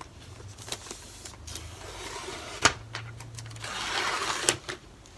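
Handling of a new MacBook Pro in its plastic wrap: scattered light clicks, a sharp tap a little past the middle, then a short stretch of plastic rustling about four seconds in.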